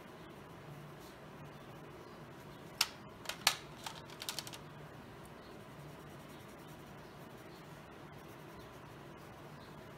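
Stabilo watercolor pencils clicking and clattering against their metal tin as one is put back and another picked out: a quick cluster of sharp clicks about three seconds in. A faint steady hum lies underneath.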